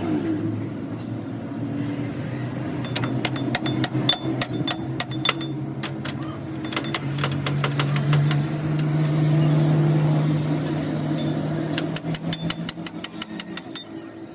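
A motor running steadily, its hum rising in pitch about halfway through, with three runs of rapid sharp metallic clicks or taps over it.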